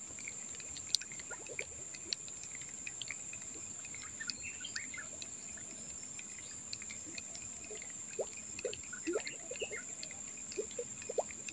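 Quiet wetland ambience: a steady high insect buzz with scattered faint bird chirps and a few soft clicks.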